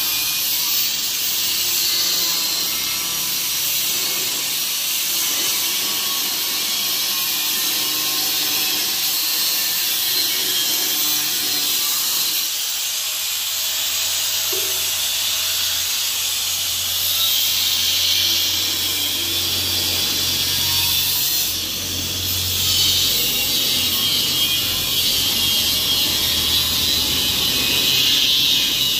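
Handheld angle grinder cutting into a rusted metal cylinder: the disc runs on and grinds through the metal with a steady, high hiss.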